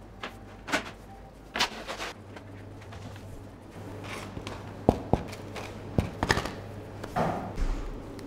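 Loaves being handled on a wooden baker's peel: scattered knocks, taps and rustles, the loudest knocks bunched about two-thirds of the way through, over a steady low hum.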